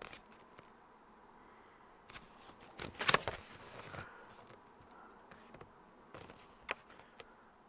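Light clicks and ticks of a plastic cassette case and its booklet being handled, with the loudest cluster of clicks about three seconds in.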